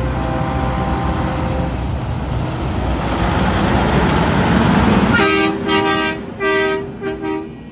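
A semi truck's diesel engine and tyres grow louder as it passes close by. About five seconds in, an air horn sounds several pitches at once, in one longer blast and then two short ones.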